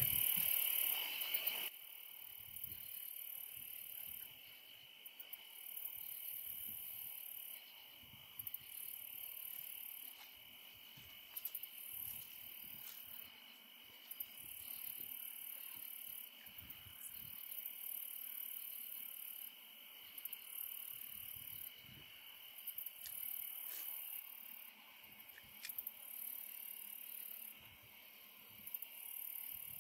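Evening insect chorus: a steady high buzz that stops about 24 seconds in, and a still higher shrill chorus switching on and off every few seconds, with a few faint clicks.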